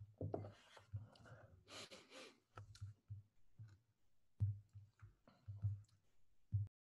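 Faint scattered clicks and soft low knocks, with a breathy hiss about two seconds in; the sound cuts off to dead silence just before the end.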